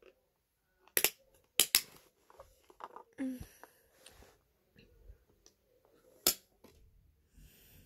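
Plastic DVD case and disc being handled while the disc is pressed on its centre hub: three sharp clicks, two close together about a second in and another about six seconds in, with light rustling between.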